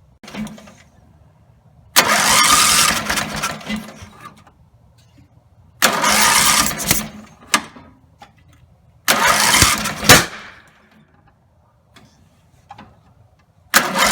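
Briggs and Stratton 17 HP riding-mower engine being started over and over: four short bursts of cranking and running, each about one to two seconds, cutting out between tries. The engine is not keeping running; the owner suspects the throttle linkage.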